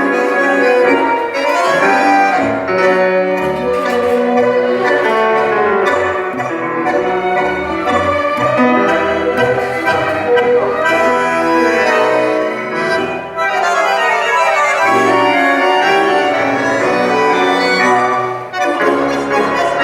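Tango orquesta típica playing an instrumental passage: bandoneons and violins over piano, with many moving melodic lines and no voice.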